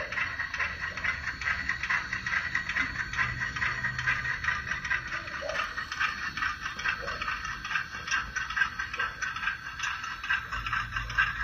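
Model steam locomotive running along layout track: a steady, fast clicking rattle from its motor, gearing and wheels on the rails.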